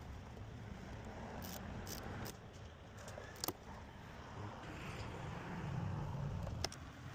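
Scattered sharp clicks and taps of a hand tool and metal parts as a new bolt-in fuse is set into an under-hood fuse box and bolted down, over a low steady rumble.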